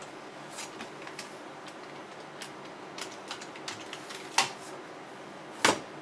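Scattered light clicks of a computer mouse being clicked, with two sharper, louder clicks a little after four seconds and near the end.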